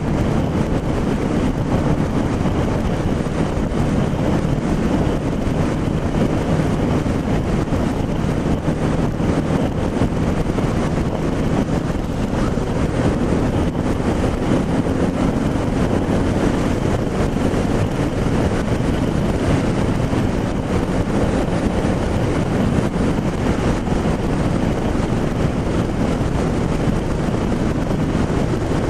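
Motorcycle cruising at a steady highway speed, heard from a helmet-mounted camera: a constant rush of wind over the microphone with the engine's even drone underneath.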